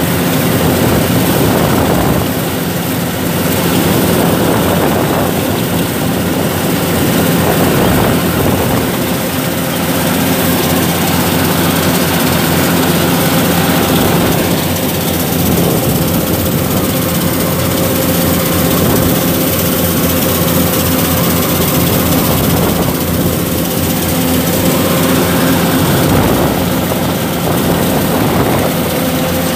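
Yanmar 850 combine harvester's engine and machinery running steadily while it cuts rice, heard close up from the operator's seat.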